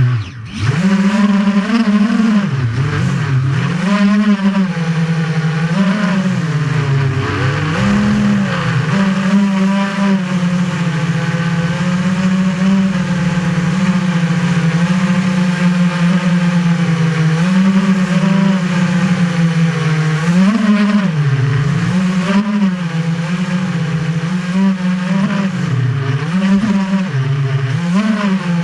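FPV racing quadcopter's brushless motors and propellers, heard from the camera mounted on the drone, buzzing loudly and without a break. The pitch keeps swinging up and down every second or two as the throttle is worked.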